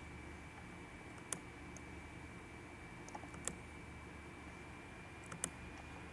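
Faint room tone with a steady high whine, broken by several short, sharp clicks of a computer mouse and keyboard.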